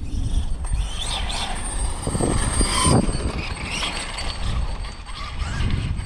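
Brushless electric drivetrain of a Losi 5ive TE 3.0 1/5-scale RC truck whining, rising and falling in pitch as it speeds up and slows, loudest about three seconds in. Wind rumbles on the microphone underneath.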